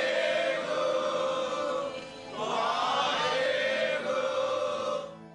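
Background music of voices chanting in chorus, in two long held phrases with a short break between them; the music drops away near the end.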